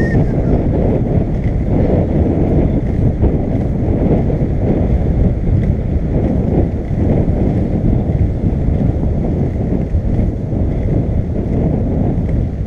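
Skateboard wheels rolling over a brick-paver walkway, making a steady rough rumble, with wind buffeting the microphone.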